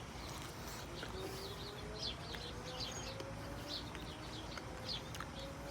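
Small birds chirping over and over in the background, faint, with a faint low hum slowly rising in pitch beneath them.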